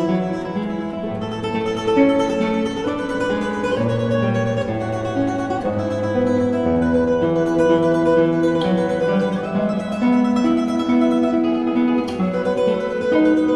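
Background music: a plucked acoustic guitar playing a slow melody over bass notes.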